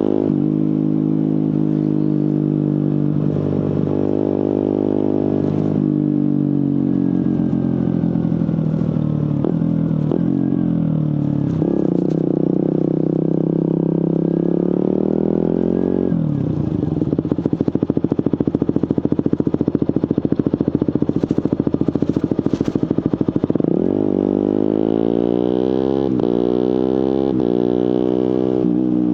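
Suzuki GSX-R150's single-cylinder engine through a Prospeed aftermarket exhaust, rising and falling in pitch as the bike accelerates, holds speed and slows. Near the end it revs up hard and drops in pitch several times in quick succession at quickshifter upshifts.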